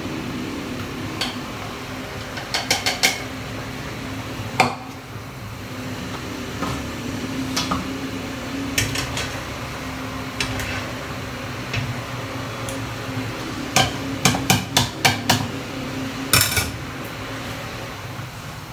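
Metal utensils clinking against a wok and a plastic cup as boiled red chillies are scooped out with a wire strainer and spoon. The scattered clinks are joined near the end by a quick run of about seven taps, over a steady low hum.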